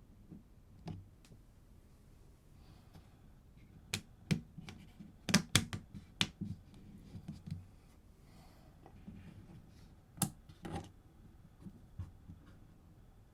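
Hands handling a new Sony A7 IV camera and its packaging: scattered sharp clicks and taps with soft rustling between, a cluster of the loudest clicks in the middle and two more near the end.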